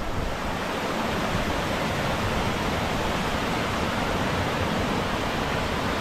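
Waterfall in heavy monsoon flow pouring down a rock face into a rocky stream: a steady, even rush of water.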